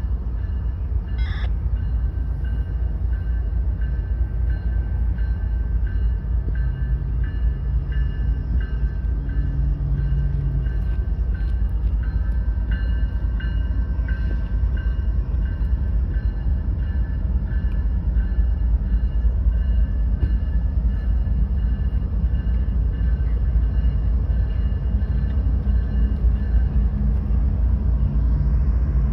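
Diesel locomotives of an approaching CSX freight train, running with a steady low rumble that grows slightly louder. A grade-crossing bell rings over it at a steady pace.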